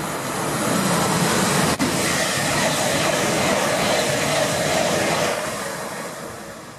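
Electric passenger train running through the station at speed: a steady rush of wheels on rail that fades away over the last second or so as it draws off.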